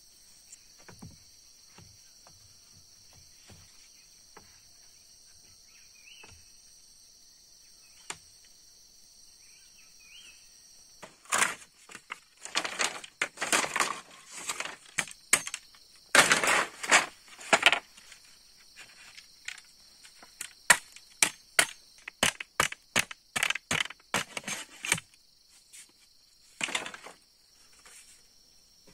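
Split bamboo pieces knocking and clattering against each other as they are handled and laid down: a long run of sharp, hollow knocks, some in quick clusters, starting about a third of the way in and stopping a few seconds before the end. Under it runs a steady high insect drone.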